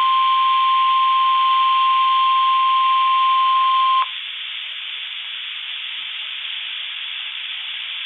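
NOAA Weather Radio 1050 Hz warning alarm tone, one steady high tone over radio hiss, cutting off sharply about four seconds in and leaving only the hiss. The tone is the attention signal that a warning message, here the tornado drill, is about to follow.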